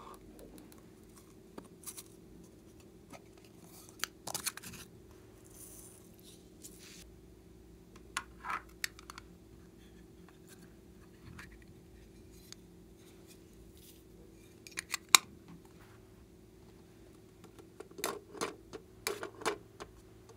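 Hard plastic objects handled by hand, giving scattered sharp clicks and taps. One loud click comes about three quarters of the way through and a quick run of taps near the end, over a faint steady hum.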